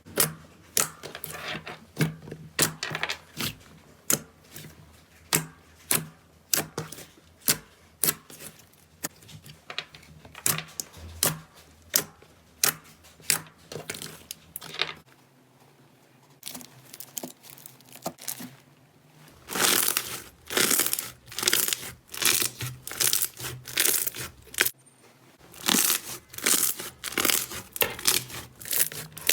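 Slime being pressed and worked by hand, making irregular sharp pops and crackles. It goes quieter about halfway through, then crackles densely through the last third.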